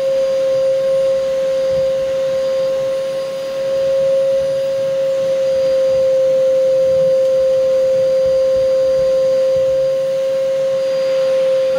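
Vacuum cleaner running steadily, with an even motor whine.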